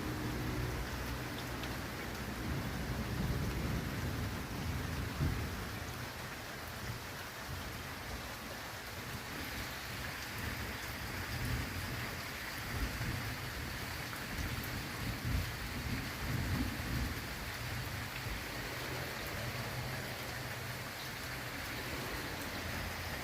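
Thunderstorm: steady heavy rain, with low rolling thunder rumbling through the first several seconds.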